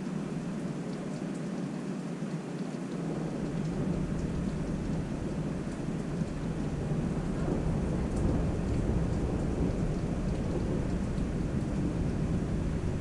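Thunderstorm at night: steady rain falling, with a low rumble of thunder that comes in about three seconds in and carries on.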